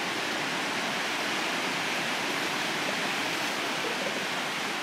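Ocean surf breaking and washing in over a rocky beach: a steady rushing noise with no separate crashes.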